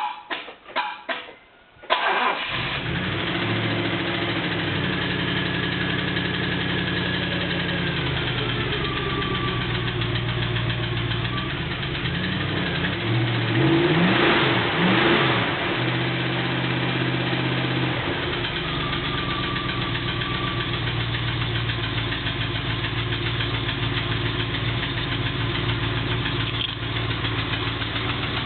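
Triumph Stag's 3.0-litre V8 starting from cold: a few clicks of the starter solenoid, then the engine catches about two seconds in and idles, revs up and back down briefly about halfway through, and settles to idle again with a knock that the owner is trying to track down.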